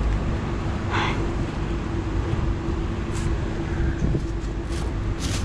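A steady machine hum over a low rumble, with a few short scraping or rustling noises about a second in and near the end.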